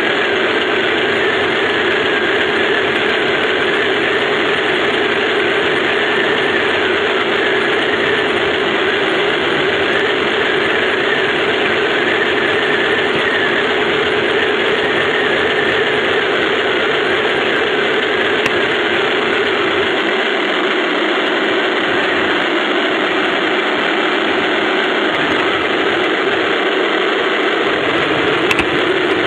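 A 1:16 radio-controlled Tiger I tank model driving, its drive motors, gearboxes and tracks running as a steady mechanical noise.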